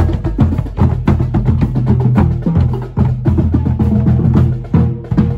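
Marching drumline playing while passing by: deep bass-drum beats under quick, sharp stick and rim hits in a fast, steady rhythm.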